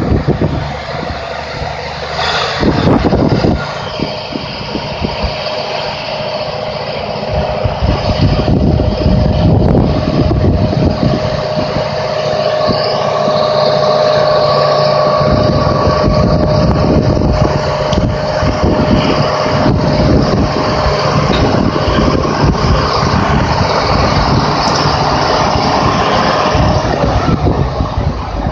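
Small diesel switcher locomotive's engine running as it moves slowly along the track, hauling a dead steam locomotive, with a steady whine over the engine's rumble.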